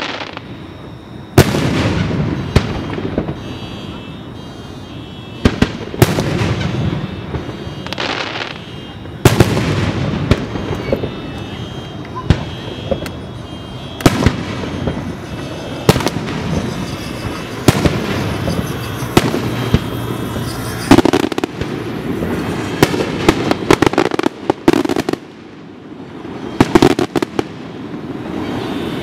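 Aerial firework shells bursting, many loud booms at irregular intervals with some in quick clusters, each trailing off in an echoing rumble, over a background of voices.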